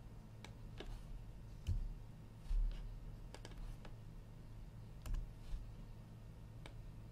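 Sparse computer keyboard and mouse clicks, a dozen or so irregular taps, over a steady low hum. Three dull low thumps, about two, two and a half and five seconds in, are the loudest sounds.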